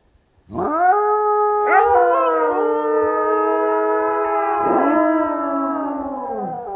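Wolves howling, several long howls overlapping at different pitches. A few more voices join in partway through, and the chorus slowly sinks in pitch toward the end.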